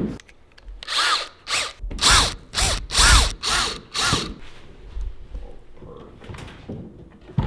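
Cordless drill driving screws through a metal piano hinge in short trigger pulses: about seven quick whirs between one and four seconds in, each rising and falling in pitch as the motor spins up and stops.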